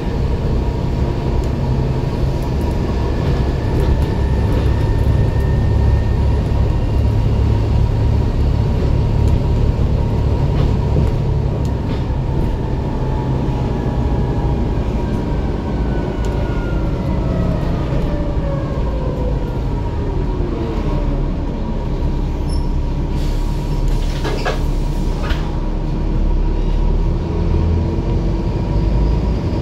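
Volvo B7 double-decker bus heard from the upper deck while driving: a steady low engine rumble with a transmission whine. The whine falls in pitch about two-thirds of the way through as the bus slows, then climbs slowly again as it picks up, with a few rattles in between.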